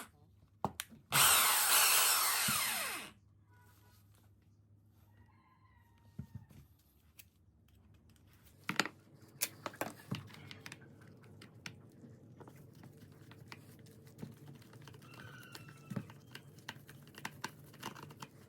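A concrete rotary hammer drill is run for about two seconds and then stops, its pitch sliding down. Scattered clicks and knocks of handling follow.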